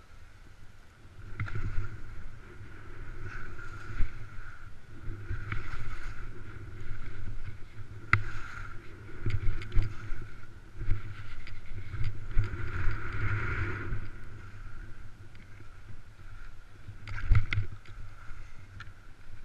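Skis scraping and carving on firm snow through a run of turns, swelling and fading every second or two, with wind rumbling on the camera microphone.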